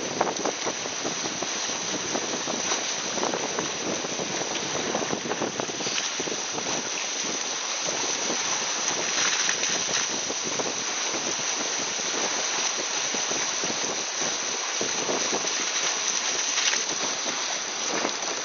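Water rushing and spraying off a sailing catamaran's hull at speed: a steady hiss of spray with constant small splashes and crackles.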